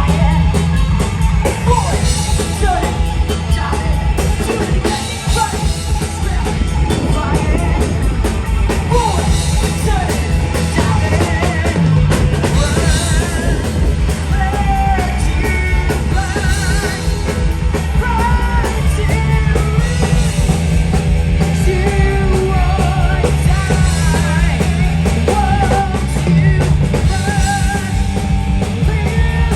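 Live rock band playing a song with a singer over drum kit, bass and guitar.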